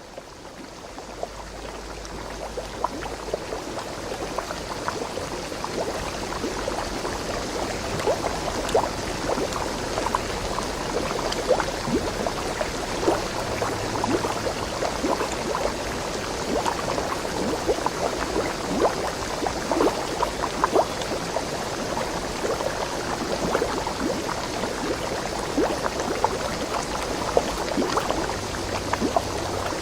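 Water splashing and gurgling as it runs over rocks in a creek, fading in over the first few seconds.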